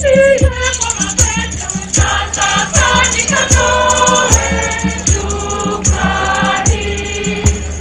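A choir singing a gospel song over a steady drum beat with shaker percussion.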